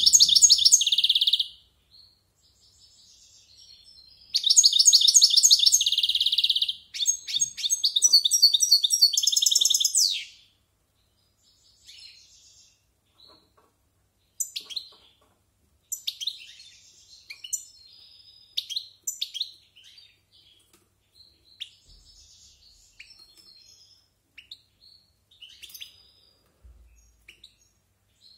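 A European goldfinch singing its varied song: fast, high twittering phrases, loud at the start and again from about four to ten seconds in, then scattered quieter notes and short calls.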